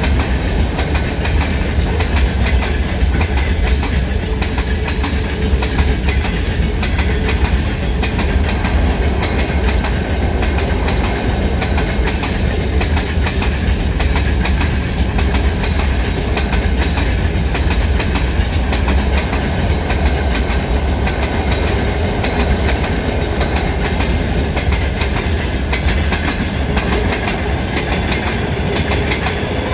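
Freight train wagons rolling past steadily, their wheels clicking over the rail joints over a constant low rumble.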